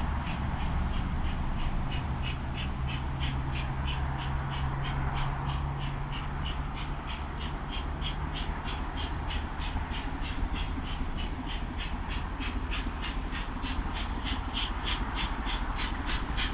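Exhaust beats of a distant Pacific steam locomotive working hard. The chuffs come in a fast, even rhythm of about three to four a second and grow louder toward the end as the engine approaches, over a steady low rumble.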